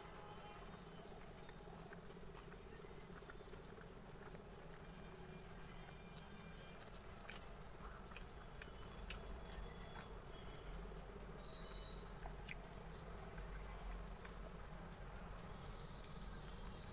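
High-pitched insect chirping that repeats evenly, about four chirps a second, with a few faint clicks and taps from eating.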